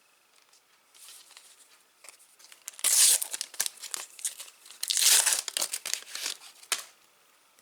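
Plastic sticker-pack wrapper being crinkled and torn, in two loud crackling bursts about three and five seconds in, with lighter rustles around them.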